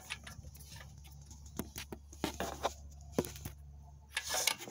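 Light metallic clicks and taps as a hand pushes open and handles the butterfly plate of a Camaro 6.2L V8's throttle body, over a low steady hum.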